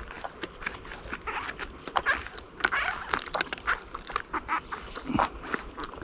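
Wild oyster mushrooms being snapped and torn off by hand: a run of irregular crisp cracks and crackles.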